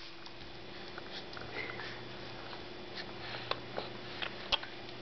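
A few faint clicks and taps, mostly in the second half, from a baby handling and mouthing a plastic sippy cup, over a steady low hum.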